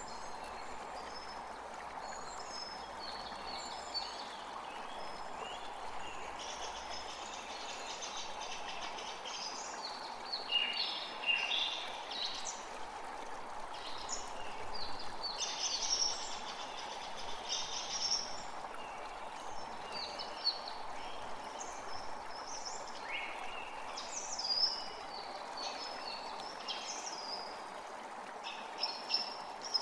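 Birds chirping and singing in many short, quick calls over a steady rush of running water. The calls grow busier and louder from about ten seconds in.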